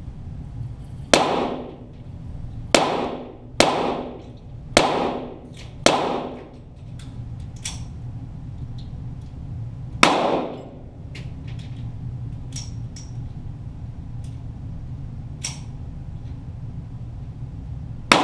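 .22 LR Walther GSP target pistol shots, echoing: six loud reports in the first ten seconds, then fainter cracks every few seconds and one more loud shot at the end, over a steady low hum.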